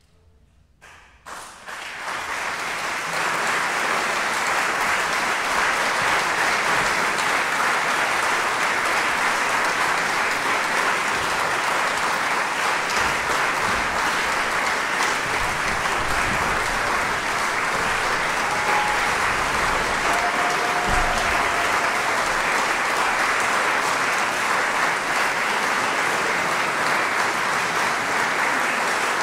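Audience applauding: near silence, then clapping that starts about a second in, builds quickly and holds steady.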